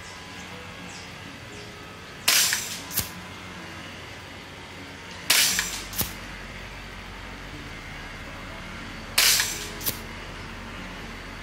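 Kalibrgun Springbok .22 (5.5mm) PCP air rifle firing three shots about three to four seconds apart. Each is a sharp crack followed about two-thirds of a second later by a smaller click. The rifle is shooting at reduced power, its regulator turned down to 50 bar, at about 900 fps.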